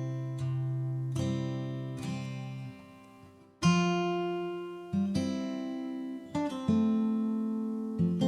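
Background music: an acoustic guitar playing chords without vocals. Each chord is struck and left to ring out, and after a brief soft moment about three seconds in, a louder chord comes in.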